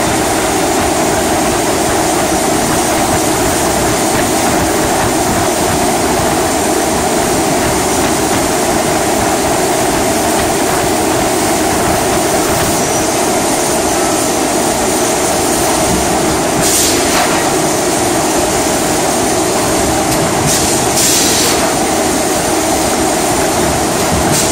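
Steady loud mechanical din of a 4000-ton hot forging press and the forge shop around it. Short high hisses break through about two-thirds of the way in and again near the end.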